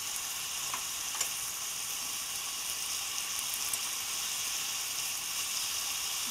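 Sliced ribeye steak with onions and peppers frying in olive oil in a small non-stick pan on high heat, a steady sizzle. There are a couple of light clicks about a second in.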